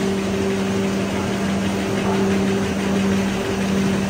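Drinking-straw production machinery running with a steady hum: a constant low drone and a fainter higher tone over a continuous rushing noise.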